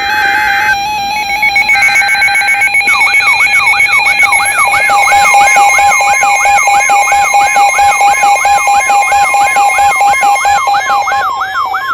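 Emergency Alert System alert tones: two short screechy data bursts, then a steady electronic tone overlaid with a rising electronic whoop that repeats about two and a half times a second.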